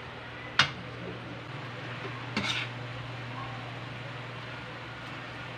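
A sharp metal clink against an aluminium wok about half a second in, then a shorter clatter about two and a half seconds in, as vegetables are tipped from a bowl into the noodles. A steady low hum runs underneath.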